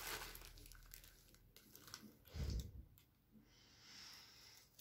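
Faint crinkling of a plastic bag and paper as a cat plays tangled in them, with one soft low thump about two and a half seconds in.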